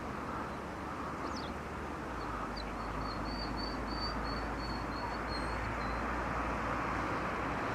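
A songbird singing one short trill of about a dozen quick, high notes that drop slightly at the end, over a steady background hiss.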